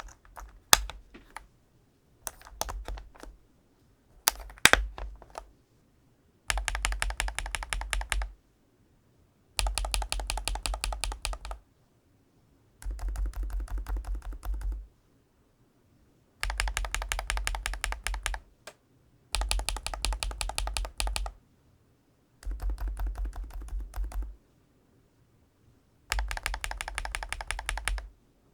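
Typing on a GLITTER65 HE Pro magnetic Hall-effect-switch keyboard. A few separate key presses come first, then seven bursts of fast typing, each about two seconds long with brief pauses between.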